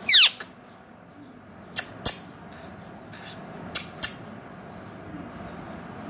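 Indian ringneck parakeet giving one short, loud screech that falls steeply in pitch, then two pairs of short sharp clicks about two and four seconds in.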